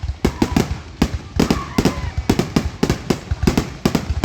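Fireworks display exploding in quick succession: many sharp bangs, several a second, irregular and overlapping.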